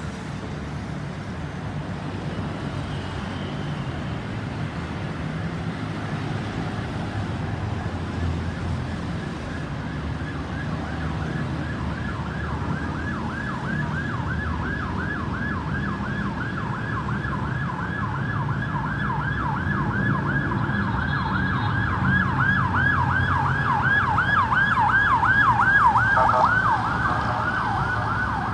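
Ambulance siren in a fast yelp, about three to four sweeps a second, growing louder as it approaches over road traffic noise. Near the end it switches to a different, steadier siren tone.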